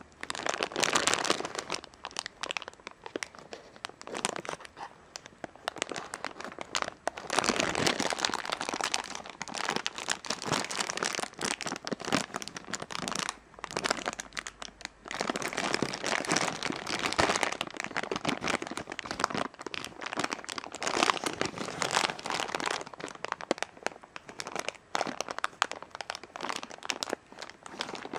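Clear plastic bag crinkling continuously as it is handled and opened, an irregular crackle with a short lull about halfway through.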